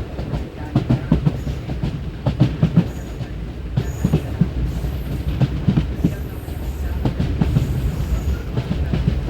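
Passenger train arriving, its wheels clacking over rail joints in a run of irregular knocks over a steady low rumble.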